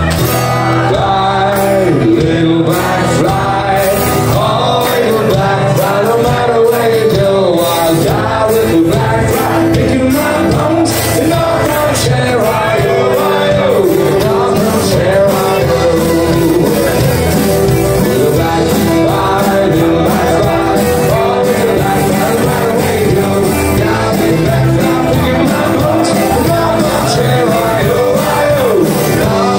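Live folk-rock band playing: fiddle, guitars and drums driving a steady beat under a sung lead vocal, heard from within the audience.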